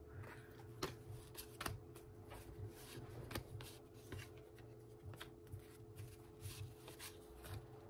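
Baseball trading cards being flipped through by hand: faint, irregular slides and flicks of card stock as each card is moved to the back of the stack.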